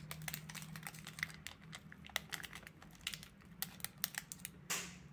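Plastic lollipop wrapper crinkling, with irregular sharp clicks as it is handled and cut open with scissors and a short rustle near the end. A low steady hum runs underneath.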